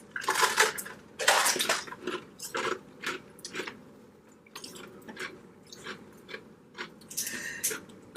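A person chewing food from a seafood boil: a run of short, irregular chewing strokes that thin out about halfway through.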